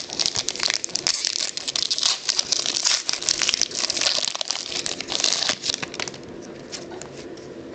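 Wrapper of a pack of SP Authentic football trading cards crinkling and tearing as the pack is opened, the cards handled and flicked through. The crackle is dense for about six seconds, then gets quieter.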